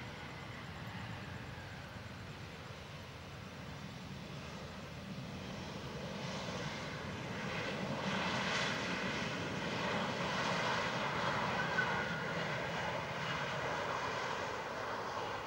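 Jet engines and runway rollout of an Airbus A320-214 with CFM56 turbofans just after touchdown: a steady rushing jet noise that grows louder as the airliner passes about eight seconds in, then eases a little.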